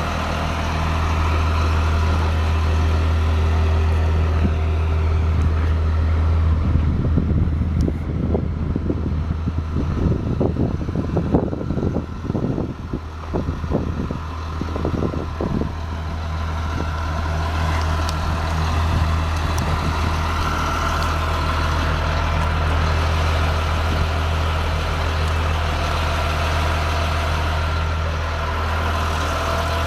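2006 Blue Bird Vision school bus's diesel engine idling with a steady low hum. A stretch of irregular knocks and rattles runs through the middle.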